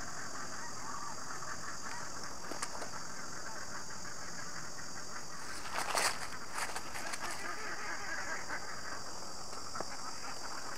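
A freshly landed grass carp being handled on dry, leaf-covered ground: scuffs and rustles, with a brief flurry of slapping and rustling about six seconds in as the fish is wrestled among the leaves. A steady high hiss runs underneath.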